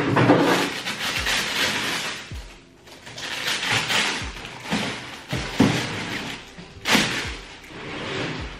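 Rustling and crinkling of the white printed wrapping inside a shoe box as a pair of sneakers is unwrapped and lifted out, with a few knocks of the shoes and box.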